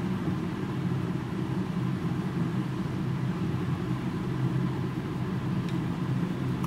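Steady low background hum of running machinery, unchanging throughout.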